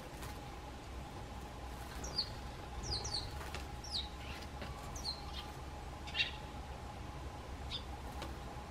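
Eurasian tree sparrows chirping: short, high chirps, each dropping in pitch, starting about two seconds in and coming roughly once a second, over a faint steady hum.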